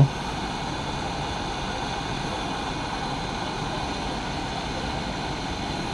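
Steady hiss of a hot-air rework station blowing on a laptop motherboard, heating a shorted MOSFET to desolder it.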